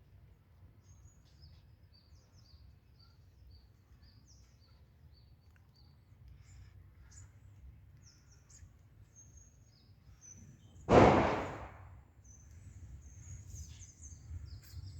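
Small birds chirping faintly and often over a low background rumble. About eleven seconds in there is a single loud, sudden noise that fades over about a second.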